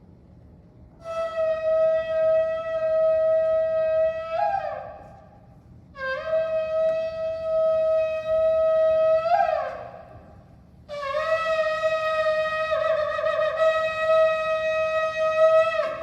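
Shofar blown in three long calls, each held on one steady note and breaking in pitch as it ends; the third call is the longest.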